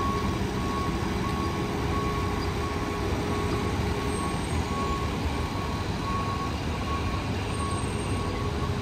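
Ambulance reversing alarm beeping steadily, about three beeps every two seconds, over the running engine as the ambulance backs into a firehouse bay.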